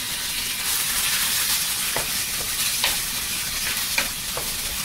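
Grated zucchini sizzling in a pan of hot oil with tempered spices, a steady hiss as the wet shreds hit the fat. A wooden spatula stirring it knocks and scrapes against the pan a few times.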